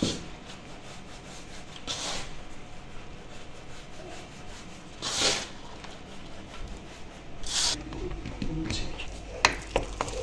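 Hands rubbing grated butter into flour in a metal basin: a soft steady rustle of flour with a louder hissing swish every two to three seconds as the hands work the mixture. A few sharp clicks come near the end.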